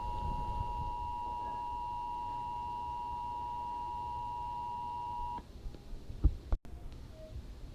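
Emergency Alert System attention signal: a steady two-tone alert tone that cuts off suddenly about five and a half seconds in. Two short thumps follow, the first of them the loudest sound here.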